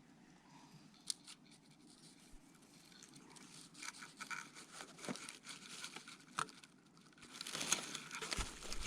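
Close rustling and crinkling with scattered small clicks, light at first and growing louder near the end.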